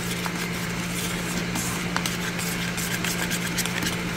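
Metal spoon stirring and scraping a dry seasoning-salt mix in a bowl, with many small scrapes and clicks. Underneath is a steady low hum with a hiss.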